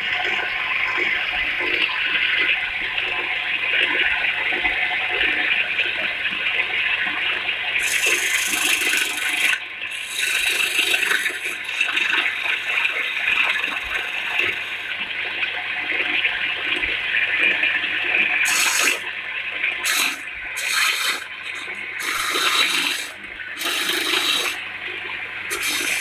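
Wood lathe spinning a long wooden cylinder while a hand-held tool cuts it: a steady hissing rasp over a low electric-motor hum. From about eight seconds in the cutting grows sharper, and near the end it breaks into separate short passes.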